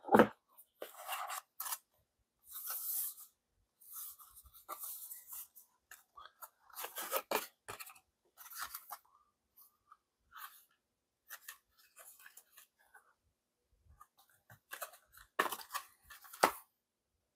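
Hands handling the contents of a cardboard collector's box: thin printed cards and clear acrylic pieces rustling, scraping and sliding, with scattered clicks. A sharp knock right at the start is the loudest sound, and another sharp click comes near the end.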